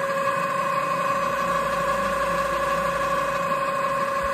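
Mini metal lathe driven by a sewing-machine servo motor, its chuck spinning at a steady speed with an even whine.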